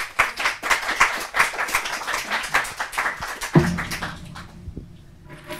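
Audience applauding, a dense patter of clapping that fades out after about four seconds. A single low thump comes as the clapping dies away.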